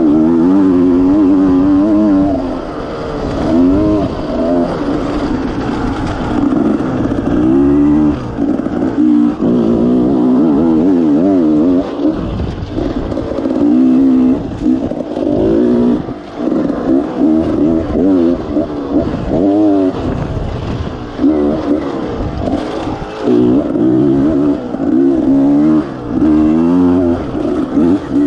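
Enduro motorcycle engine under hard riding, revving up and down over and over as the throttle is worked and the gears are changed.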